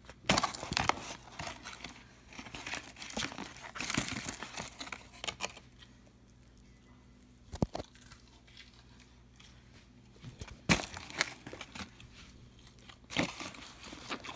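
Paper liner and cardboard of a McDonald's nugget box being handled and crinkled, in spells of rustling with a couple of sharp knocks in a quieter middle stretch.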